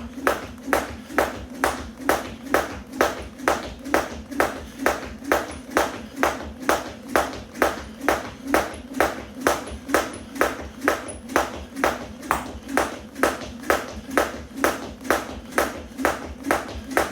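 1 lb weighted jump rope slapping the floor on each turn, a steady rhythm of sharp slaps a little over two a second.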